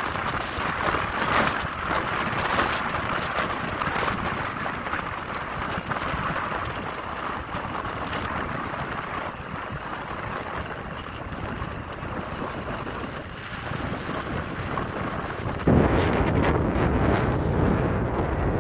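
Wind rushing over the microphone with the steady road noise of a moving vehicle. About three seconds before the end the rush suddenly grows louder and deeper.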